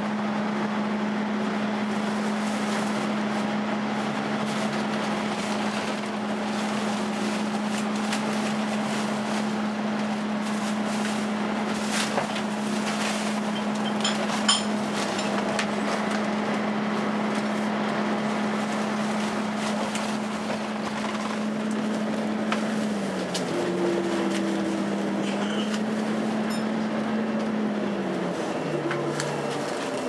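Inside a moving Volvo B10BLE single-deck bus: engine and road noise under a steady hum from the engine's cooling fan, the vacuum-cleaner-like 'hoovering' sound. Near the end the hum's pitch dips, comes back up, then falls lower.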